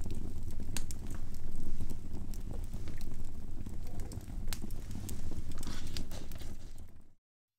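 Split wood logs burning in a stone fireplace: a steady low rumble of flames with irregular sharp pops and crackles from the logs. The sound cuts off suddenly near the end.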